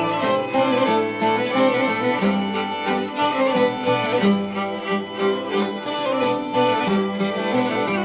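Instrumental film-score music: a bowed violin melody over sustained lower string notes, with light percussive accents recurring about once a second.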